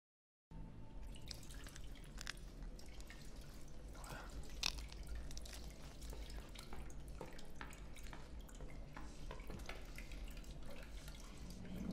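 Quiet eating sounds: scattered small clicks and taps of food and dishes at a table, over a low steady hum, starting about half a second in.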